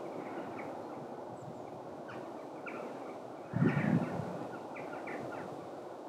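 Outdoor ambience with repeated short bird calls, and a loud low rumble about three and a half seconds in.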